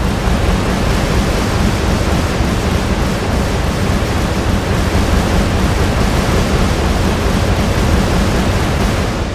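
Steady, loud rushing noise with no pitch, cutting in suddenly from silence just before and starting to fade at the end.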